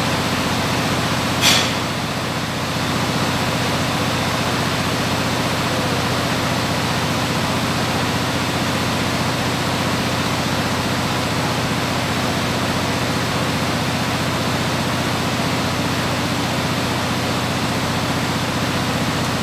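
A steady, even hiss-like noise, with one sharp click about one and a half seconds in.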